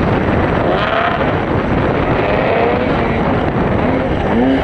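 Snocross racing snowmobiles' two-stroke engines revving, their pitch rising and falling as the sleds accelerate and back off, over a constant noisy rush of track and wind noise. The engine pitch climbs again near the end as a sled passes close by.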